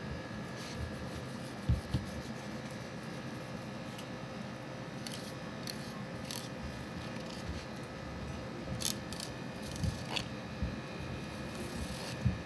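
A knife filleting a whole salmon on a plastic cutting board: faint scraping and slicing along the fish with scattered small clicks and a few soft knocks, over a steady room hum.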